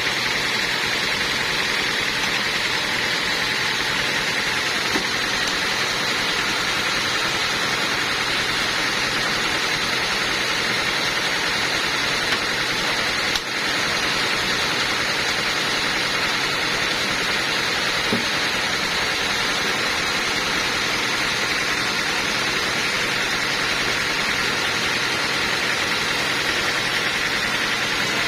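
Sawmill machinery running steadily: a constant, unbroken mechanical drone with a hissing edge, dipping briefly about halfway through.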